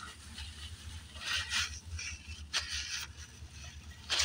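A few short rustling handling noises over a low steady hum inside a car.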